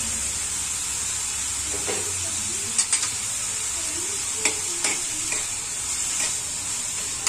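Chopped capsicum, onion and tomato sizzling in hot oil in a kadai while being stirred with a metal spoon, which clicks against the pan a few times.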